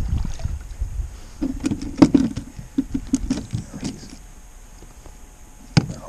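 Handling noise of a small trout being unhooked in a wooden-framed rubber-mesh landing net: a low rumble, then a string of light knocks and clicks of the net and fish against the kayak, with a sharp click near the end.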